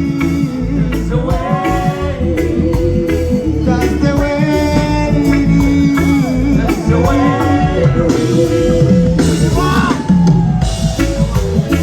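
Loud amplified music: a sung vocal over drums and bass.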